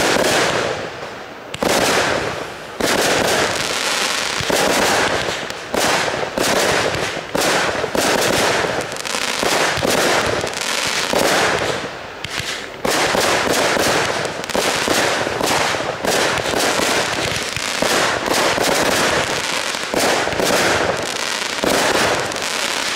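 Fireworks display: aerial shells bursting in quick succession, a dense run of sharp bangs and crackling with hardly a pause.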